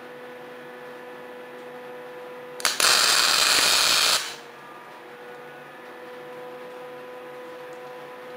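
Arc welding a tack: after a click, the arc hisses loudly for about a second and a half, starting a little under three seconds in, over a steady low hum.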